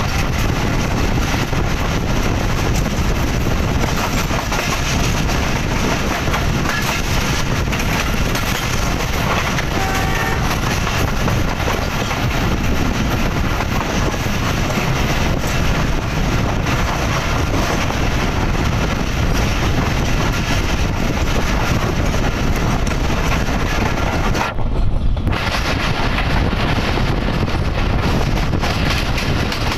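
Passenger train running at speed, heard from an open coach window: a steady rush of wheels on rail and wind on the microphone, with rail-joint clicks scattered through it.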